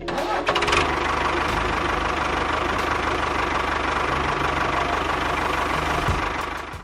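A motor running steadily with a rattling, mechanical hum, starting and stopping abruptly.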